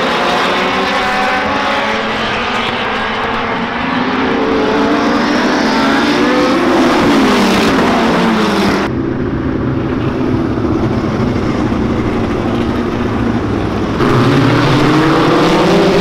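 A field of open-wheel race cars running laps, with several engines rising and falling in pitch as they pass and rev through the turns. The sound turns duller for a few seconds in the middle.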